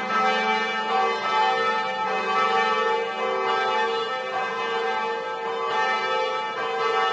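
Church bells ringing: several bells struck in turn in a repeating round, their tones ringing on and overlapping.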